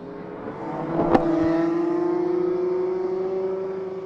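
A racing kart's two-stroke engine running past on the track: the note swells in over the first second, holds loud with a slowly rising pitch, then drops away near the end. A single sharp click comes about a second in.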